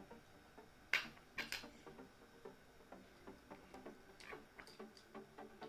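Lump of jaggery being pressed and crushed to powder in a bowl. There are a few sharp knocks about a second in, the first the loudest, then a run of light, irregular clicks and taps.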